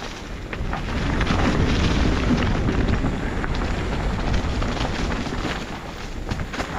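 Mountain bike being ridden on a dirt and rock singletrack: the tyres rumble over the ground, with rapid small knocks and rattles from the bike and low wind buffeting on the microphone. It gets louder from about a second in, as the speed picks up, and eases near the end.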